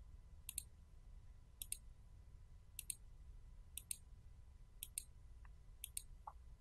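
Computer mouse button clicked six times, about once a second. Each click is a quick double tick, the press and then the release.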